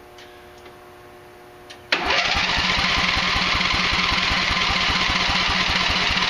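Riding lawn tractor engine being turned over by its electric starter, starting about two seconds in: a fast, even cranking rhythm with no firing. It almost sounds like there's no compression.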